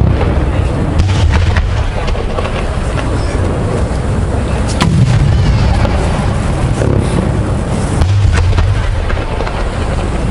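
Aerial fireworks bursting: a continuous rumble of booms, with a sharp crack about five seconds in.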